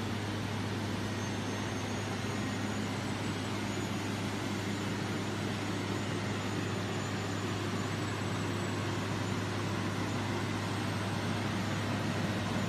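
PP meltblown nonwoven production line running: a steady machine din of blowers and motors, an even rushing noise over a constant low hum.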